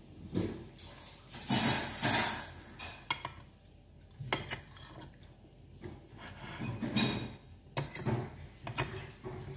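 Metal fork clinking and scraping against a plate, with several separate sharp clinks and two longer, louder scraping stretches.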